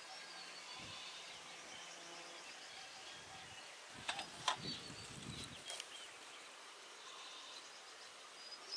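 Faint outdoor ambience of small birds chirping and insects buzzing, with a few soft clicks about four to five seconds in.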